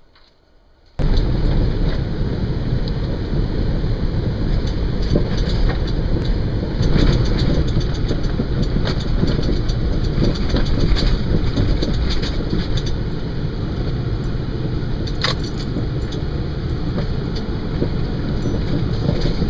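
A vehicle driving, its engine running steadily under dense rattling and clicking; it starts suddenly about a second in.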